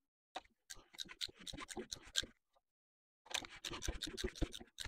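Faint rapid clicking in two spells, about half a second in and again after about three seconds, as the Vauxhall C20LET engine is turned over by hand with a wrench on the crankshaft pulley to check the cambelt timing.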